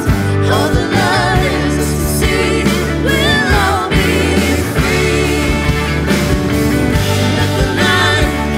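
Christian worship song played by a band with drums and bass, a singer's voice carrying the melody over it.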